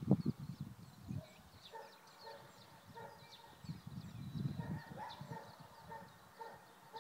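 Faint outdoor animal sounds: small birds chirping high, over a string of short, repeated lower calls from a distant animal. A low rumble swells briefly around the middle.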